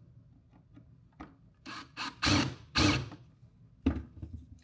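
A bracket being screwed onto a car headlight assembly by hand tool: scattered clicks, then a quick run of short ratcheting, scraping bursts in the middle, the two loudest close together, and a sharp click near the end.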